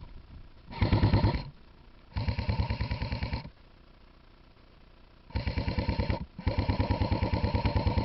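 Electric airsoft rifle firing on full auto in four bursts, each a fast buzzing run of shots over the gearbox whine; the second and last bursts are the longest.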